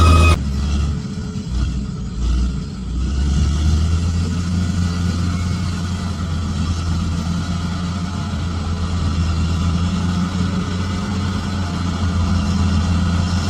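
Bulldozer diesel engine running with a steady low hum. A louder, higher-pitched engine sound cuts off abruptly about half a second in.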